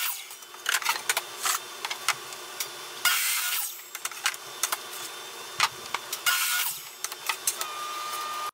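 DeWalt compound miter saw making short crosscuts through pine boards, one every three seconds or so. Wooden boards knock and clatter between the cuts as they are handled.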